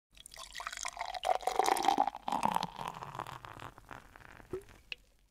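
Liquid pouring and gurgling into a vessel for about five seconds, fading toward the end, with a couple of short drips just before it stops.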